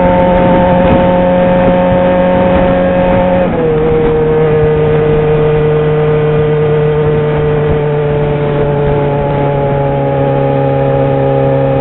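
Yamaha XJ6's 600 cc inline-four engine running at a steady cruising speed, its note dropping a step in pitch about three and a half seconds in and then sinking slowly lower.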